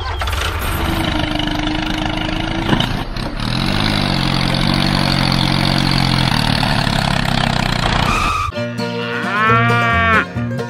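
A vehicle engine runs with a steady low rumble and a rising whine in the middle, then cuts off suddenly after about eight seconds. A cow moos once near the end, a long call that rises and falls.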